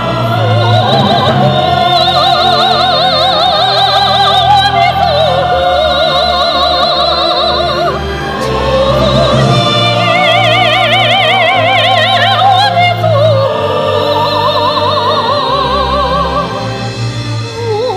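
Female soprano singing long held notes with wide vibrato, in an operatic style, backed by a symphony orchestra and choir. There is a short break between phrases about eight seconds in.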